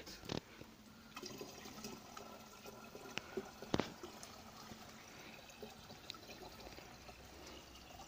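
Water poured in a thin stream from a metal pot into a large plastic water jug, a faint steady trickle as the jug fills, with two short clicks in the middle.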